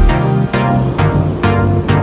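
Background music with a steady beat of about two hits a second over heavy bass notes.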